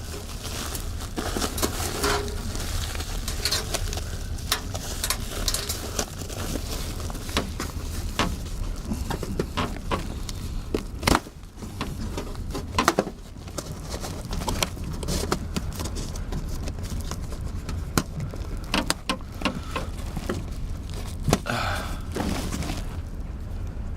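Flexible HVAC duct being handled and worked back onto its fitting: rustling and crinkling with many sharp clicks and knocks, over a steady low hum.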